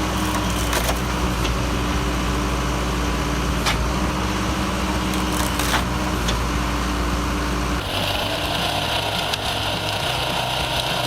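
Engine-driven hydraulic log splitter running steadily, with a few sharp cracks of wood splitting apart. About eight seconds in the sound changes abruptly to a steady higher hiss over a lighter machine hum.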